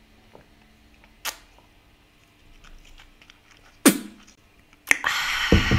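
Drinking from a glass bottle: quiet swallows and small clicks of lips and glass, two short sharp sounds, then a loud breathy sound lasting about a second near the end.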